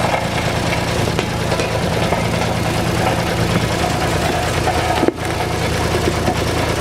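Road roller engine running steadily at idle, with a brief drop about five seconds in.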